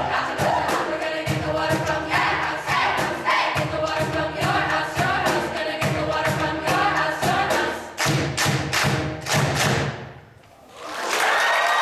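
Choir singing over a steady beat of sharp thumps; the song stops about ten seconds in, and after a short hush applause begins near the end.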